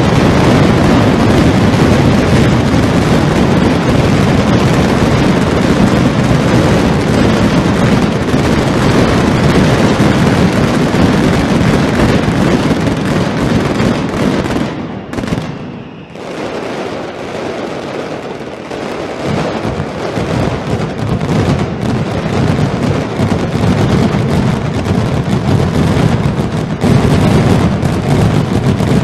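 Mascletà firecrackers (masclets) going off in a dense, unbroken barrage of rapid bangs. The barrage thins briefly about halfway through, then builds back to full density near the end.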